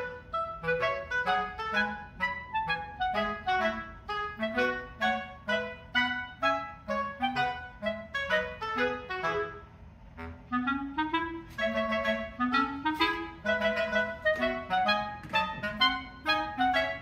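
Background instrumental music: a light, quick tune of short detached notes, easing briefly about ten seconds in before rising runs of notes pick it up again.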